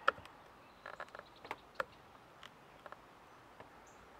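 Scattered light clicks and taps, about a dozen over a few seconds, as the two heating-wire connectors are worked off the back of a side-mirror glass.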